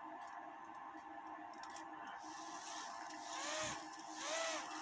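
Cuckoo clock's bellows-and-pipe call near the end: two short, breathy whistled notes about a second apart, each swelling and fading in pitch with a puff of air, and a soft mechanical thump between them.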